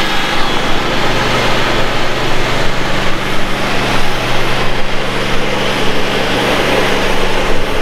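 Home-built variable-pitch boat propeller and its shaft spinning steadily on a test stand at about 200 rpm: a steady low mechanical hum under a loud, even rush of noise. At this speed it runs without wobble.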